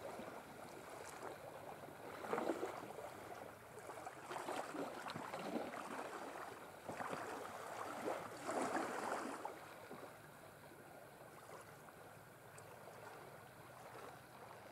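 Small waves lapping at the water's edge of a calm beach, washing in irregularly every couple of seconds, then quieter after about ten seconds.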